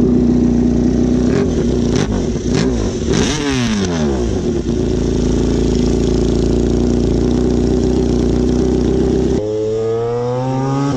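Honda race motorcycle idling with a steady engine note, its throttle blipped several times between about two and four and a half seconds in, the revs sweeping up and falling back. Near the end the sound cuts to a motorcycle accelerating, its engine note rising steadily.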